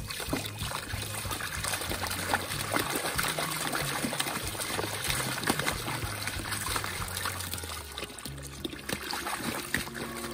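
Water from a garden hose pours and splashes into a plastic paddling pool as two young arctic wolves stand and step in it. Steady background music runs underneath.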